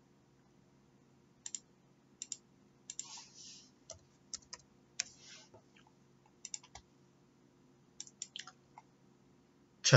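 Computer mouse clicks and keyboard key taps, scattered in small quick clusters over a faint steady hum.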